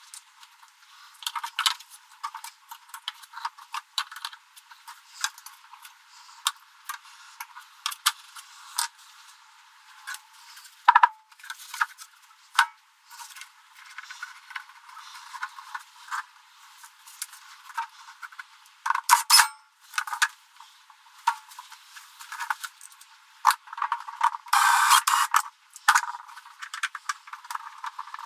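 Hand-work on a Triton thickness planer's cutter head during a blade change: irregular metallic clinks, taps and rattles of an Allen key, bolts and blade parts being handled. A louder, busier spell of rattling and scraping comes near the end.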